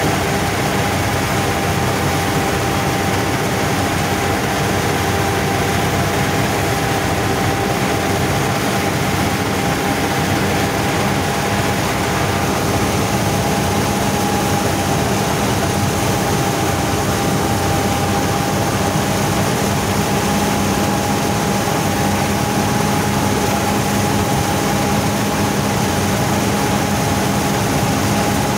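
Władimirec T-25 tractor's two-cylinder air-cooled diesel running steadily under load, together with a Bizon Z020 trailed combine harvester working as it cuts wheat. There is a steady high whine over the engine's drone.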